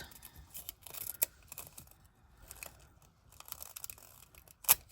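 Thin nail transfer foil crinkling as it is pressed and rubbed onto a gel nail, with scattered small clicks and one sharp tap near the end.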